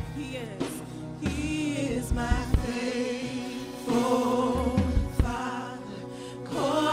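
Live gospel worship song: a group of singers over a band, with a few drum hits.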